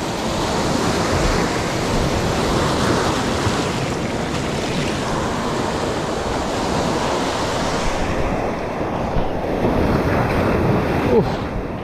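Sea surf breaking and washing up a beach, with wind buffeting the microphone. The hissing wash thins out after about eight seconds.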